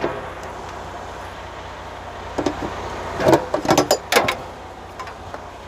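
Handling clatter as a tractor's air-brake hose coupler (gladhand) is hooked onto its holder bracket on the back of the cab: a few knocks about two and a half seconds in, then a quick run of sharp clacks. A steady low hum from the truck, which is running, lies under it.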